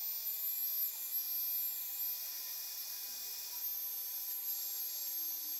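Small electric heat gun blowing hot air, a steady airy hiss, shrinking heat-shrink tubing over soldered wire joints.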